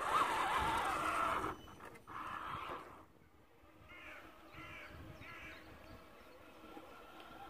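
A small electric RC crawler motor whines for the first second and a half. About four seconds in, a crow caws three times in quick succession.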